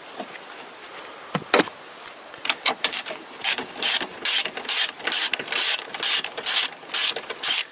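Hand ratchet on a socket extension unscrewing a bolt: a few single clicks, then a steady run of short clicking bursts, about two a second, one on each back-swing of the handle.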